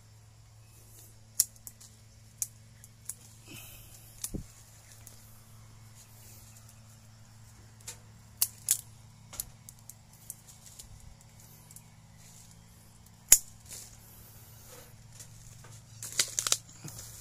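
Hand pruning shears (secateurs) snipping through small durian branches: single sharp clicks at irregular intervals of one to a few seconds, with a run of several quick snips near the end.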